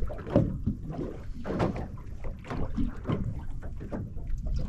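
Water lapping and slapping against the hull of a small anchored boat, in irregular splashes and knocks over a low rumble.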